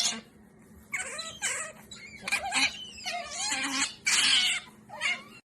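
Pet otters calling: a string of about six high, wavering squeaks and chirps, the loudest and harshest a little after four seconds in.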